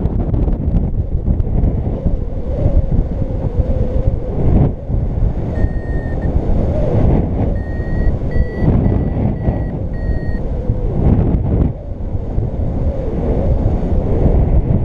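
A paragliding variometer beeps out its climb tone, signalling rising air. There is one beep about five and a half seconds in, then a run of short beeps about half a second apart that ends about ten seconds in. Loud wind rushes over the microphone in flight the whole time.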